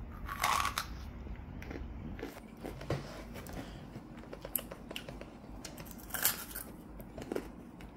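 A child biting into and chewing a freeze-dried watermelon gummy, its airy dried shell crunching. There is a louder bite about half a second in, small crackles and clicks of chewing, then more bites about six and seven seconds in.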